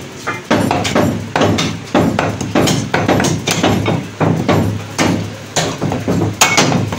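Butcher's cleaver chopping mutton front leg into pieces on a round wooden chopping block: a string of sharp, irregular chops, roughly two a second.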